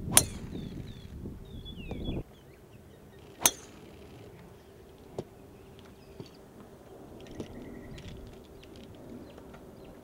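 Golf club striking a ball on a full swing: a sharp crack with a short ring, twice, about three seconds apart. Birds chirp faintly around them.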